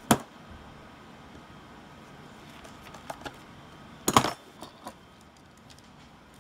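A few sharp clicks and clinks from handling the massage gun's housing and small metal tools. One click comes right at the start, two small ones around three seconds, and the loudest is a quick cluster a little after four seconds, followed by a couple of softer taps.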